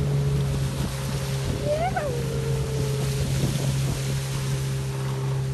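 Small tiller-steered outboard motor running steadily as it drives a small boat along, a continuous even drone. A brief rising-then-falling squeal sounds about two seconds in.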